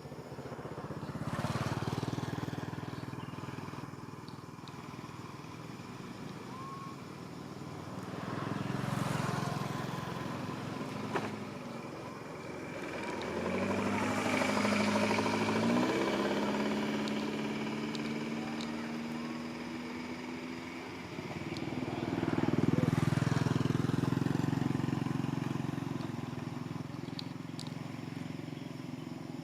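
Motor vehicles passing one after another, four times, each engine sound rising and then fading away.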